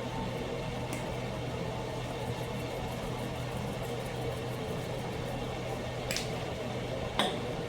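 Steady low kitchen hum under a faint hiss, with a few light clicks of handling about a second in and near the end.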